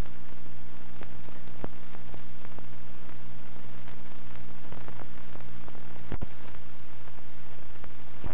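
Steady hiss and low hum of an old 16mm film soundtrack with no sound on it, dotted with scattered crackles and one sharper pop about six seconds in.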